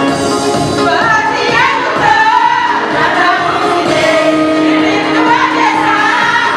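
A group of women singing a praise hymn in Oromo together, with instrumental backing; the voices come in strongly about a second in.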